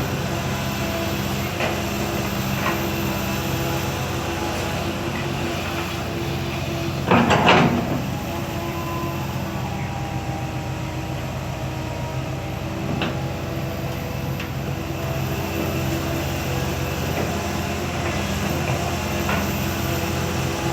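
Komatsu PC160LC hydraulic excavator's diesel engine running steadily while it digs and loads soil, with a loud rattling burst about seven seconds in and a few short clunks scattered through.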